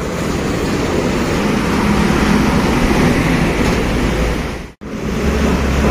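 Busy city street traffic: motorcycles and trucks passing, a steady rumble of engines and tyres. It breaks off for a moment near the end and then resumes.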